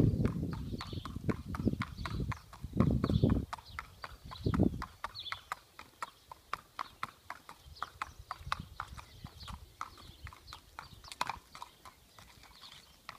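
Horse's hooves clip-clopping at a steady walk on a hard sealed path, about three to four hoof strikes a second. A low rumbling comes and goes over the first five seconds.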